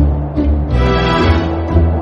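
Instrumental backing music of a children's nursery-rhyme song, with strong bass and held notes between sung verses.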